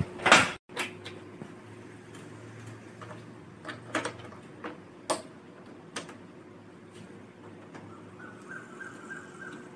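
Plastic front panel and louvre of a split air-conditioner indoor unit being handled and pressed into place: a handful of sharp plastic clicks and knocks, the loudest right at the start, over a faint steady hum. A faint high-pitched squeal rises for about two seconds near the end.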